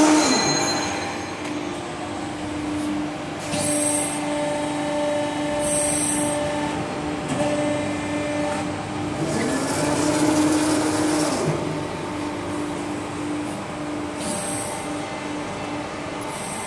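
Steady electric hum of a 160-ton CNC hydraulic press brake's pump motor running at rest, with short high hisses every few seconds and a longer one about ten seconds in.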